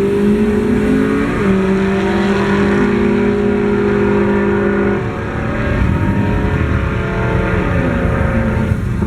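Drag-racing car engine held at high revs, with a brief dip in pitch about a second in, as at a gear shift. About five seconds in the steady engine note stops, as when the driver lifts off. A lower, rougher engine rumble follows, with a short fall and rise in pitch near the end.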